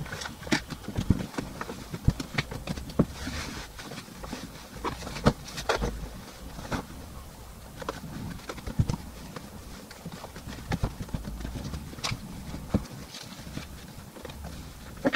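Bedding being handled: sheets and covers rustling and flapping, with scattered sharp clicks and knocks.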